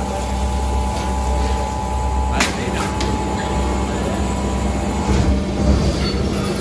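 Plastic injection moulding machine running: a steady low mechanical hum with a faint whine. Two sharp clicks, about two and a half and three seconds in.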